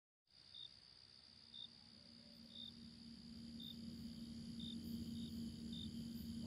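Faint night ambience of crickets, fading in from silence just after the start and slowly growing louder: a steady high trill with short chirps about once a second, over a low steady hum.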